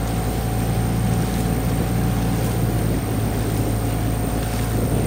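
Steady low drone of a motorboat engine running at a constant speed, with a haze of water and wind noise.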